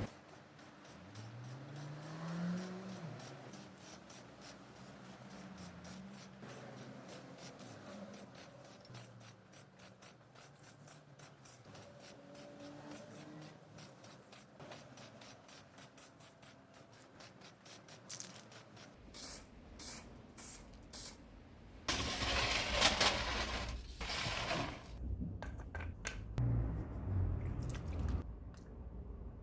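Small clicks and light scraping of hand work on metal tool parts. Near the end come four short bursts of hissing spray and then a longer, louder hiss.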